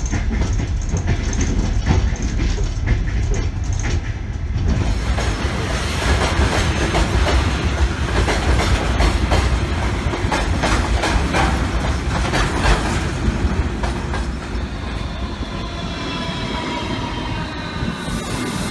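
Russian passenger train heard from aboard a carriage: a steady rumble of wheels on the track with a running clatter of rail-joint clicks, which grows brighter about a quarter of the way in. In the last third, thin high squeals of the wheels on the rails join in, rising slightly in pitch.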